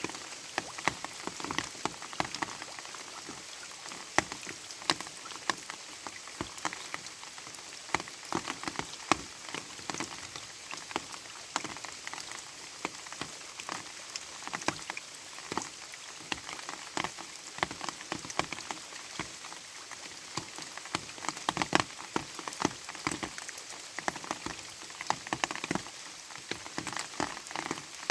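Light rain falling steadily, with many separate drops ticking irregularly on a hard surface over a soft hiss.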